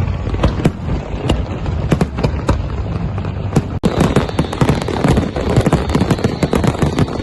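Fireworks going off in a string of sharp bangs. After a brief break about four seconds in, the bangs come thicker and faster.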